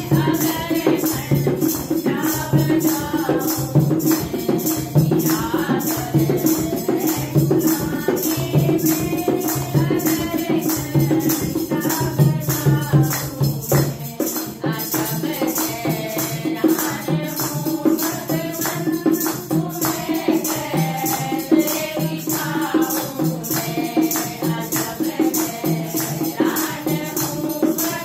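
A group of women singing a Hindi devotional bhajan in unison, with hand clapping, a dholak drum and jingling hand percussion keeping a steady, even beat.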